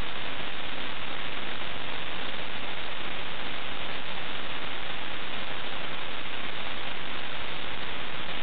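Steady hiss of static with a faint hum beneath it: blank videotape playing after the recording has ended.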